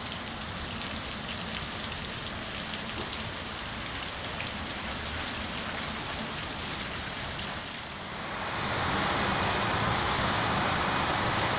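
Heavy rain falling steadily on wet paving and puddles, a dense hiss with faint drop ticks. About eight seconds in it grows louder.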